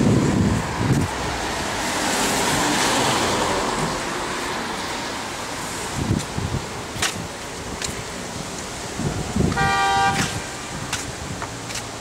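Street traffic noise, louder over the first few seconds as a vehicle passes, with one short vehicle horn toot about ten seconds in.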